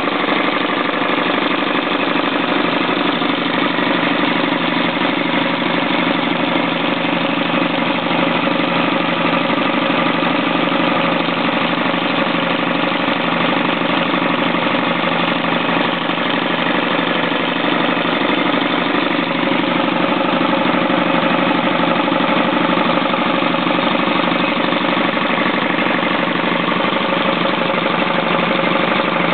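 Farymann marine diesel engine running steadily, heard up close in the boat's engine compartment, with an even, unchanging beat of its firing strokes.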